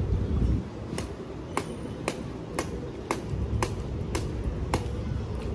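Machete chopping into a young green coconut on a wooden stump. About eight sharp knocks come roughly twice a second, starting about a second in.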